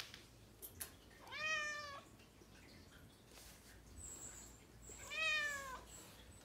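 Grey domestic cat meowing twice, a drawn-out meow about a second and a half in and another about five seconds in, the second sliding down in pitch at its end.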